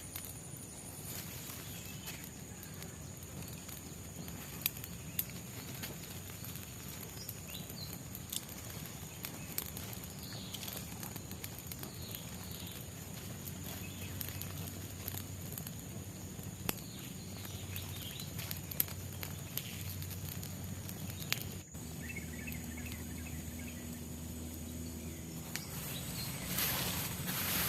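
Tropical forest ambience: a steady high insect drone with a few short bird chirps, and scattered light clicks and knocks.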